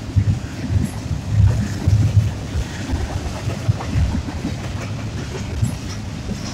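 Union Pacific freight cars rolling past, a steady low rumble with irregular clacks and knocks from the wheels over the rail joints.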